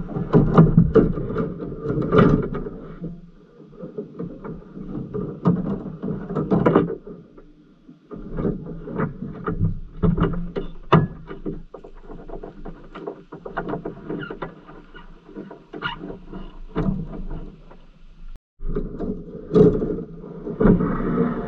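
Fishing rods and reels being handled and slid across a vehicle's roof: scattered knocks and clicks over stretches of rubbing and scraping.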